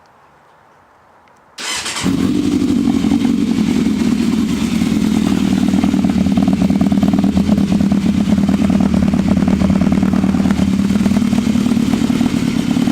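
Yamaha YZF600R inline-four motorcycle engine with an aftermarket Yoshimura exhaust, coming in suddenly about a second and a half in and then running loud and steady.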